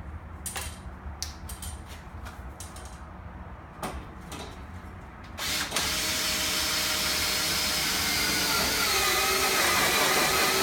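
A few clicks and knocks, then about five seconds in a drill starts and runs steadily, spinning the socket rod to drive a Sammys screw anchor into steel; its pitch sags slightly near the end as the screw loads up.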